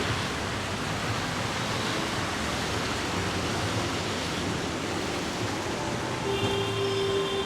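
Heavy rain falling steadily, an even hiss of water. Near the end a steady tone sounds for about a second.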